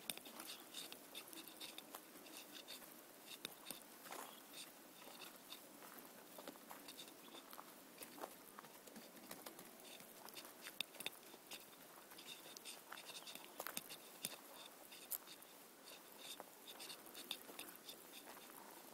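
Faint, nearly silent ambience with scattered light clicks and taps.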